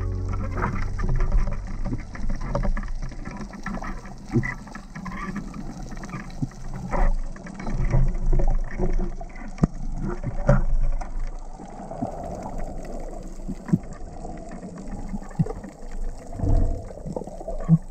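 Underwater sound picked up through a diving camera's housing as a freediver swims up with a speargun: water moving and bubbling, with scattered clicks and knocks.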